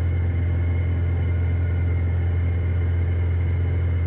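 Piper PA46 Malibu's single piston engine and propeller heard in the cabin in flight: a steady, unchanging drone.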